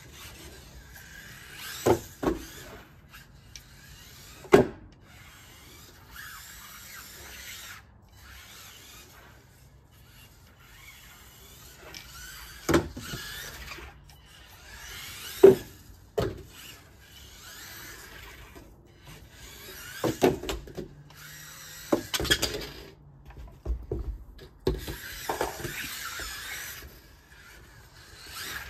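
Losi Micro-B micro RC buggy's small electric motor and drivetrain whining in bursts as the throttle is applied and let off, with sharp knocks as the car hits the wooden deck, ramps or railing; the loudest knocks come about four and a half and fifteen and a half seconds in.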